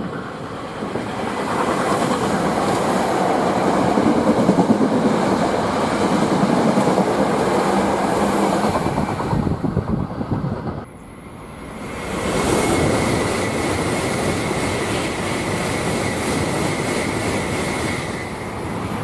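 Electric train running on the tracks; the noise cuts off abruptly about eleven seconds in and builds up again a second or so later.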